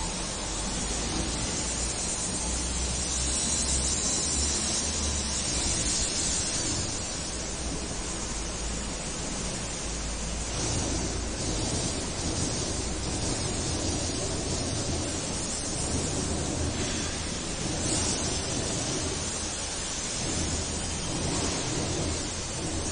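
Steady hiss with a faint, uneven low rumble and no distinct events.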